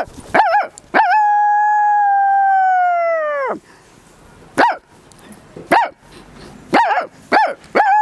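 A woman imitating a dog with her voice: a few quick yelping barks, then one long steady howl that bends down and breaks off about three and a half seconds in, followed by several single yelps spaced about a second apart.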